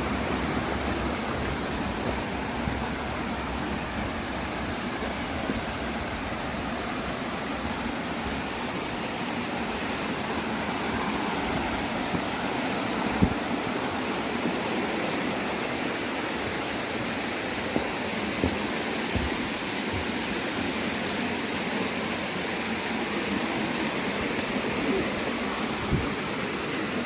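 Waterfall: a steady rush of falling water. A few brief low thumps break through, the loudest about halfway through.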